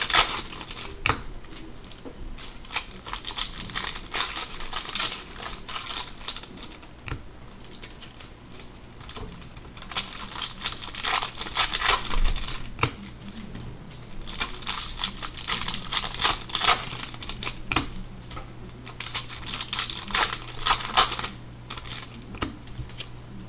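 Wrappers of Bowman Chrome trading-card packs crinkling and rustling as a stack of packs is handled, in several bouts with quieter gaps between. A steady low hum runs underneath.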